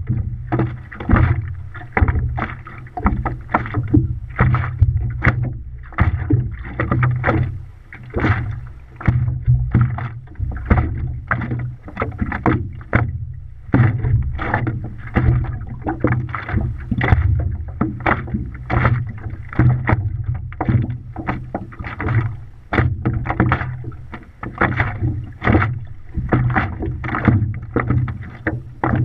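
Water splashing and slapping against a stand-up paddleboard as it is paddled, in a steady rhythm of about one to two strokes a second over a constant low rumble.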